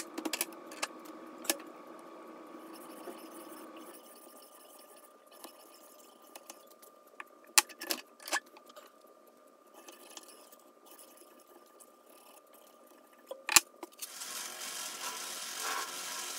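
Scattered light clicks and taps as a steel screwdriver shank clamped in a vise and an abrasive strip are handled on a workbench during hand polishing, over a faint steady hum. Near the end a steadier whirring hum sets in, from a bench buffing wheel.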